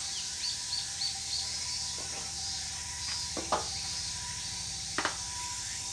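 Outdoor ambience with a steady high insect-like hiss and a quick run of four faint chirps early on, broken by three light clicks and knocks as a glue bottle and port-tube parts are handled on a workbench.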